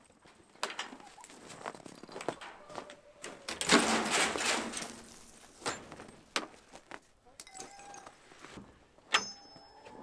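Footsteps and handling noises as a wooden chicken-coop gate and door are opened: scattered knocks and clicks, a louder scraping rustle a few seconds in, and a sharp metal latch clink with a short ring near the end.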